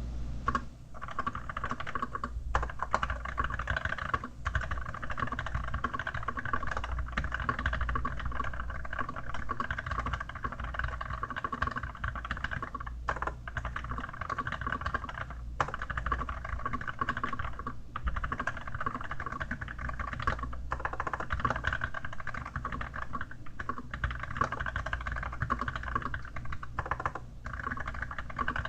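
Continuous fast typing on an Archon AK87 mechanical keyboard with Kailh Dark Gray switches under a keyboard skin: a steady stream of key clicks with a few short pauses.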